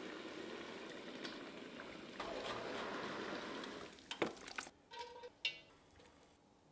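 Steady sizzling hiss of food cooking in a pot, growing louder about two seconds in, then a few sharp clinks of metal cookware, one ringing briefly.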